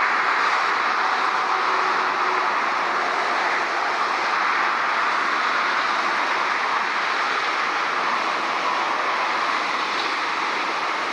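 Steady, even roar of jet engines and motorway traffic blending into one continuous wash of noise, with no passing peaks or changes.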